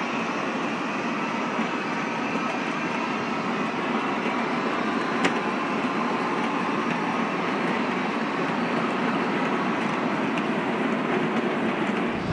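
O-scale model freight cars rolling past on three-rail track: a steady noise of metal wheels on the rails, with one sharp click about five seconds in.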